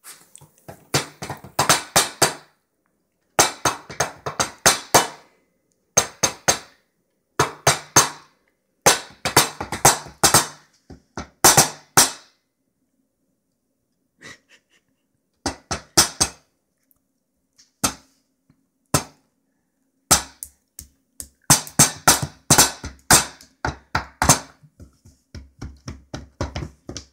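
Hands drumming on a wooden tabletop: quick runs of slaps and knocks in bursts of a second or two, separated by short pauses, with only a few scattered taps in the middle stretch.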